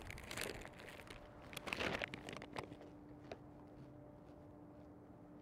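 Crinkling of a chip bag and crunching in short bursts over the first two seconds or so, as chips are handled and eaten; then only a faint steady hum.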